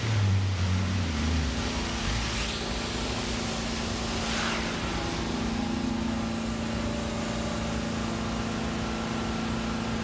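Hot-water carpet extraction wand sucking air and water as it is worked across carpet, over the steady hum and hiss of the extraction machine's vacuum. The hum's pitch shifts about a second and a half in, and the hiss swells briefly a couple of times with the wand strokes.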